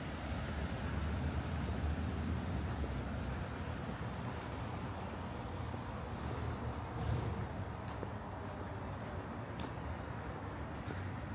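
Steady low vehicle rumble, with a few faint clicks scattered through it.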